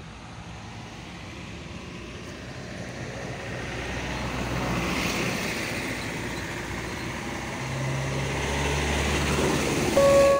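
Road traffic going by: a rush of tyre and engine noise that grows louder over several seconds, with a low engine drone coming in about two-thirds of the way through.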